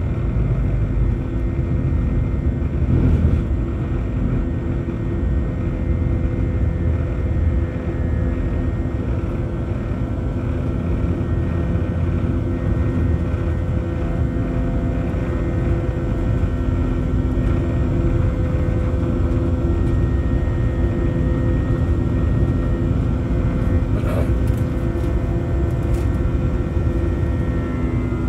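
Jet airliner engines and airflow heard inside the cabin during the climb after takeoff: a steady heavy low rumble with several steady engine tones above it.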